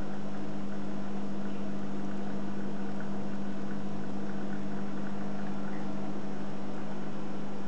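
Steady electrical hum of reef aquarium equipment, a pump motor's low drone, with faint bubbling and trickling water over it.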